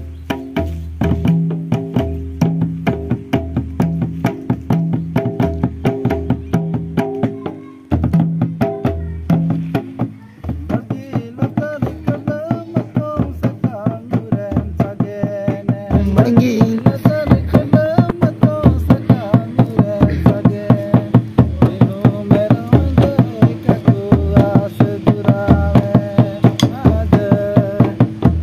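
Tumdak barrel drum played by hand together with a tamak kettledrum beaten with sticks: a quick rhythm of strikes over deep beats. The playing breaks off briefly about eight seconds in, picks up again, and grows louder about halfway through, with the deep beats coming about once a second.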